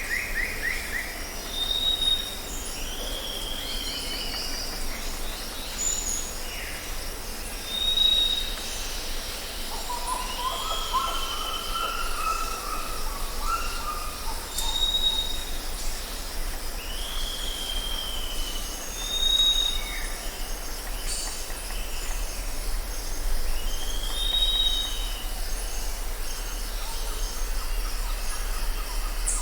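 South American jungle ambience: a steady high insect drone with birds calling over it, a short high whistle repeated every few seconds, several downslurred calls, and a warbling run of lower notes about halfway through.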